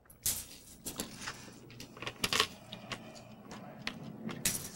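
Scrabble tiles clicking and clattering as they are handled over the board: a quick, irregular run of small hard clicks that starts just after the beginning.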